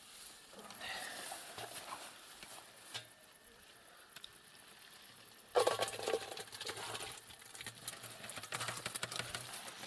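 A mass of small live fish flapping and pattering on a mesh sieve as it is tipped, sliding off into a metal milk churn. The sound is a soft patter of light wet ticks that gets busier and louder about halfway through.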